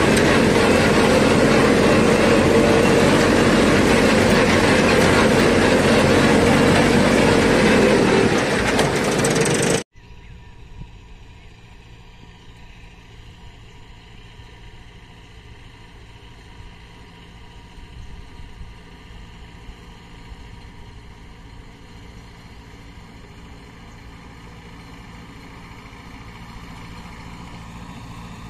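Tractor-mounted m.i.t.r.a. Storm Duster's blower and the tractor's engine, loud and close, pumping out pesticide powder with a dense steady rush. It cuts off abruptly about ten seconds in, giving way to the same tractor and duster running far off, much quieter and slowly growing louder as it approaches.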